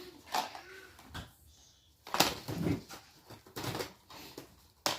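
Plastic DVD and CD cases being handled and set down while rummaging through a box: a handful of separate clattering knocks and rustles.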